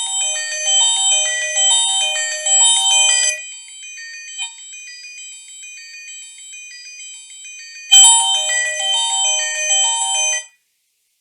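Strike R30 mobile phone playing a ringtone: a fast electronic chiming melody that drops to softer held tones after about three seconds. About eight seconds in, a click comes and the loud melody starts again, then it cuts off suddenly near the end.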